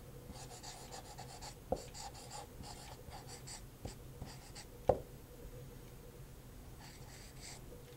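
Dry-erase marker writing on a whiteboard: faint, short squeaky strokes in quick clusters, with two sharp taps, the louder near the middle.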